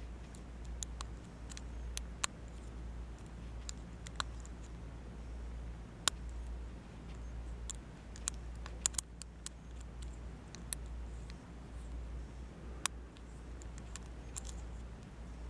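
Small, sharp metallic clicks at irregular intervals from a hook pick and tension wrench working the pin stack of a five-pin CCL Sesamee padlock, over a steady low hum.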